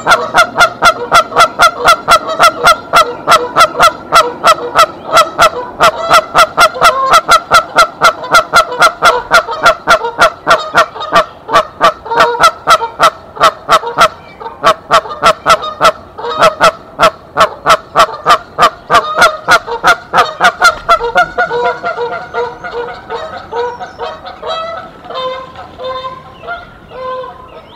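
Canada goose honking over and over in a rapid, even series, about three honks a second. About three-quarters of the way in, the honks turn fainter and sparser as the goose moves off the nest.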